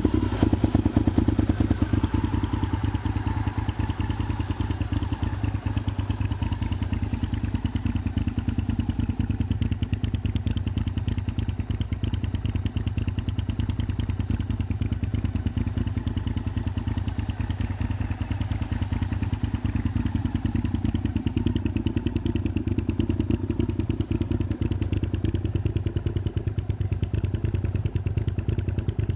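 Honda VTR1000F's 90-degree V-twin idling through Scorpion straight-through silencers: a steady, unchanging idle with evenly spaced exhaust pulses, a little louder for the first couple of seconds.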